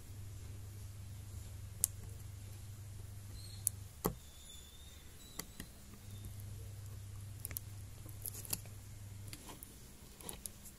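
Small irregular clicks and scratches of fingers working a 30-pin LCD display cable connector into its socket on the back of a laptop screen panel, over a low hum that drops out for a couple of seconds midway.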